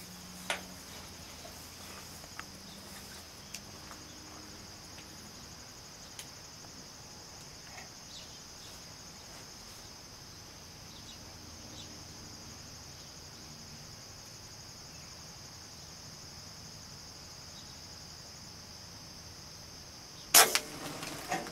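A steady high-pitched insect chorus, then near the end one sharp crack with a short ringing tail and two smaller knocks after it: a Benjamin Marauder PCP air rifle firing at the pigeons.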